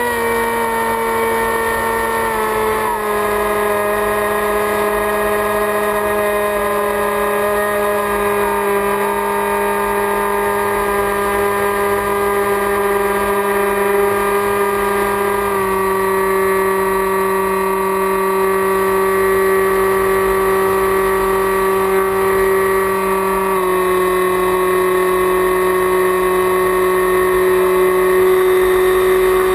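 Electric motor and propeller of an FPV flying wing whining steadily in flight, the pitch stepping down slightly a few times as the throttle is eased, with wind rushing past.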